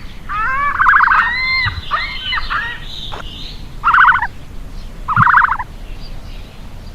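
Bird calls: about five short, loud, fast-trilled bursts, with a few higher gliding calls mixed in among the first ones.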